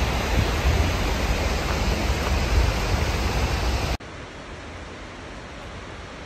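Steady rush of falling water under a strong, uneven low rumble. About four seconds in it cuts suddenly to the quieter, even rush of a tall waterfall plunging into its pool.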